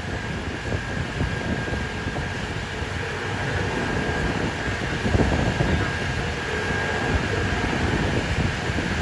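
Strong gusty wind buffeting the microphone: an uneven low rumble over steady street noise, gusting a little harder about halfway through.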